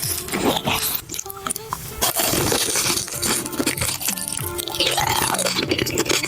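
Crunchy food being bitten and chewed, crackling and crunching over background music.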